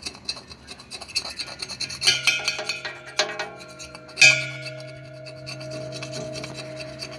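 Metal tool scraping dried flour residue off the inside of a stainless-steel mixer bowl in quick rasping strokes with sharp clicks. A loud clank about four seconds in sets the bowl ringing with a steady tone under the scraping.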